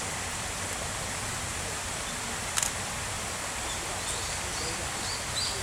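Steady rush of flowing water, with a brief rattle of clicks about halfway through and a bird's short, high chirps in the last couple of seconds.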